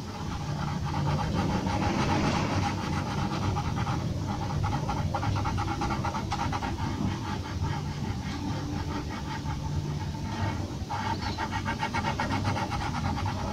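Graphite pencil scratching on drawing paper in rapid, short back-and-forth hatching strokes, many per second, over a steady low hum.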